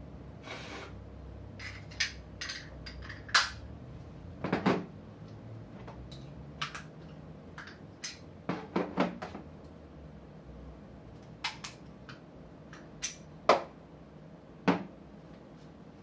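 Parts of a YC Onion Nut Q1 camera quick-release system clicking together and being set down on a tabletop: about fifteen sharp, irregularly spaced clicks and knocks, a few with a duller thud.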